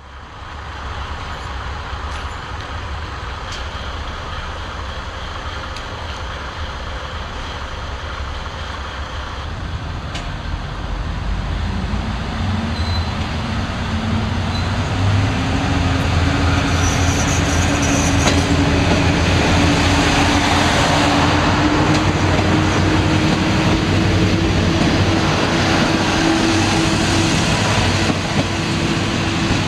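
KiHa 58 diesel railcars' engines running, then working harder as the train pulls away and passes close by. The sound grows louder about halfway through, and the engine note climbs steadily as the train gathers speed.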